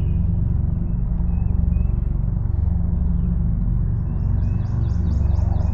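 A motorboat engine running close by with a steady, deep rumble.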